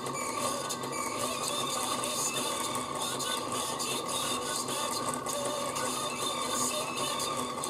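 The stepper motor and 3D-printed reduction gears of a homemade record player run at 78 rpm, really quite loud: a steady whine with a fast rattle of gear teeth. This mechanism noise largely drowns out the 78 record playing under the needle.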